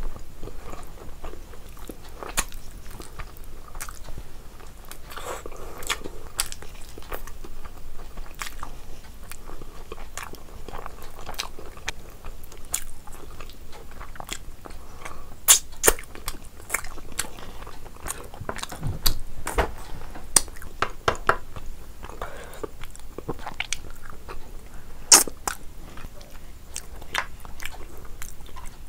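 A person chewing a mouthful of rice and curry, with many sharp clicks throughout and a few louder ones past the middle.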